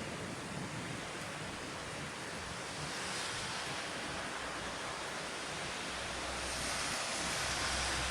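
Thunderstorm noise: a steady rushing hiss that swells about three seconds in and again near the end, when a low rumble also builds.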